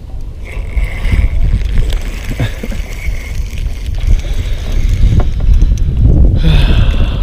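Wind buffeting the microphone outdoors on open water, a heavy, gusting low rumble.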